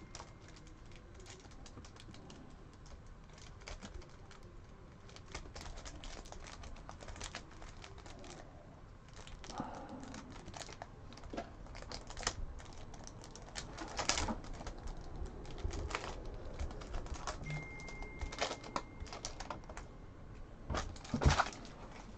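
A stack of hockey trading cards thumbed through by hand, one card at a time: faint, irregular clicks and slides of card edges against each other.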